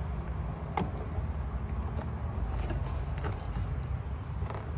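Hands working at the back of a car headlight, trying to twist the bulb out: a sharp plastic click about a second in and a few fainter clicks later, over a steady low rumble.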